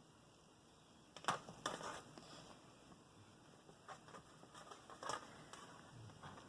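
Faint handling sounds of Play-Doh and modelling tools being worked on a tabletop: a few soft taps and rustles, clustered about a second in and again about four to five seconds in.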